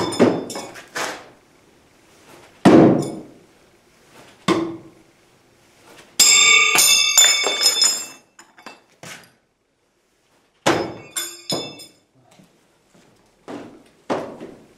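Throwing knives striking a wooden target with hard thuds. About six seconds in, one knife glances off and clatters, ringing, on the floor. A few lighter knocks follow near the end.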